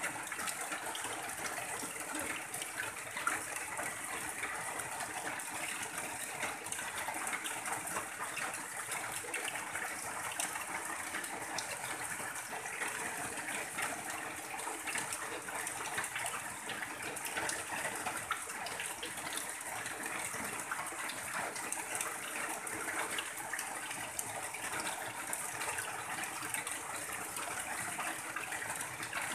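Steady rain, with water pouring off the edge of a tin roof in a continuous stream.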